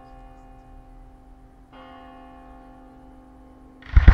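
A bell tolls, struck once about two seconds in, its tone ringing on and slowly dying away. Near the end a loud firework bang goes off, followed by rumbling.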